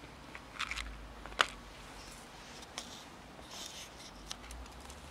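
Small clicks and rattles of a plastic food tray and dry cat kibble being handled and set down, with one sharp click about a second and a half in. Softer scattered ticks follow, from cats eating dry kibble.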